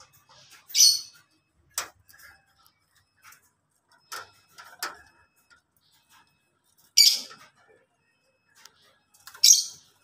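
Lovebirds calling: three loud, high-pitched squawks, the last two close together near the end, with shorter, fainter chirps between them.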